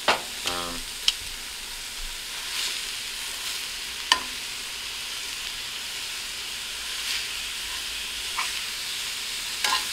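Loose chorizo sizzling steadily as it fries in a cast-iron skillet, stirred and broken up with metal tongs that click against the pan a few times, sharpest about one and four seconds in.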